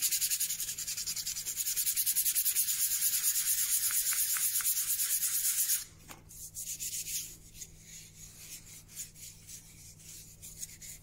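Sandpaper rubbed quickly back and forth by hand around the edge of a wooden clock weight, making a rapid, even scratchy hiss. It stops about six seconds in, and fainter, irregular rubbing of hands on the wood follows.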